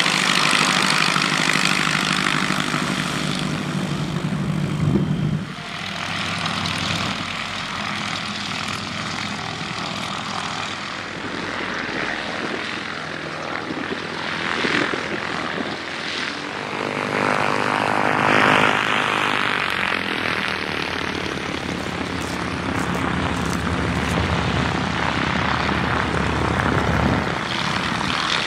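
Light-aircraft piston engines and propellers running throughout. The loudest passage, about two-thirds through, is a twin-engine Piper Twin Comanche at take-off power, its two engines' drone running on as it lifts off and climbs away.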